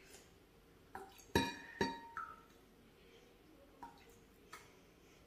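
Glass clinking: a small glass pitcher knocks against a drinking glass a few times while pouring coloured water. The loudest clink comes about a second and a half in and rings briefly.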